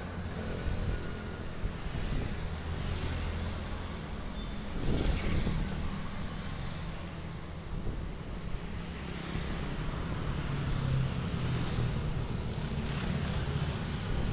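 Motor vehicle traffic: a steady low rumble with small swells in loudness.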